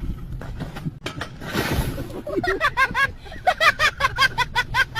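A quick run of high-pitched giggling, about four to five short rising notes a second, starting a couple of seconds in, after a brief breathy hiss.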